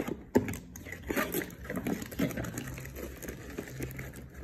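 A cardboard box being opened by hand and its packaged contents lifted out: a sharp tap about half a second in, then scattered rustling and light knocks of card and plastic packaging.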